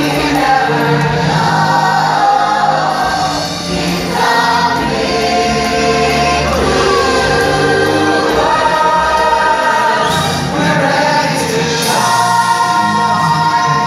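Stage musical number: several voices singing together over an orchestral backing track, loud and continuous.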